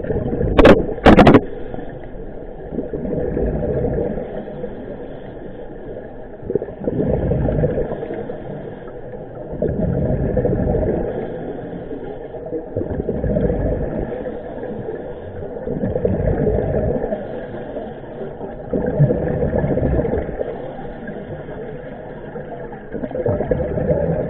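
Scuba diver breathing through a regulator underwater, the exhaled bubbles rushing out in regular swells about every three seconds. Two sharp knocks about a second in.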